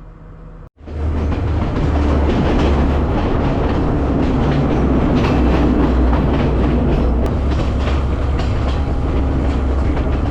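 Passenger train running on the rails, a steady loud rumble with faint rail clicks now and then. It starts abruptly about a second in, after a brief quiet moment.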